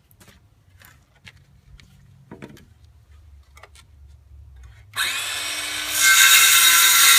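Cordless circular saw cutting through a board. It starts suddenly about five seconds in and gets louder a second later as the blade bites, after a few faint clicks.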